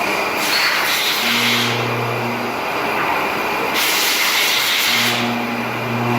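CNC lathe running while machining, a steady machine noise with a low hum that comes and goes and two spells of high hissing.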